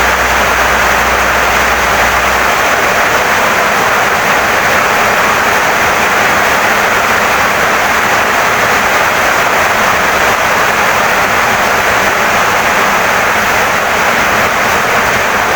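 Heavy rain pouring steadily onto a wooden house, an even, unbroken hiss of rain.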